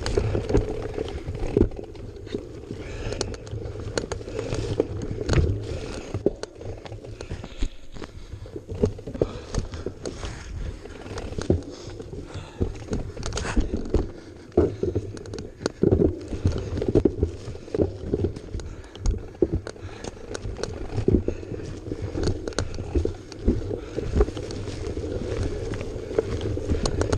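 Irregular knocks, clatter and rattles of a ride over rough, rocky ground, over a steady low rumble.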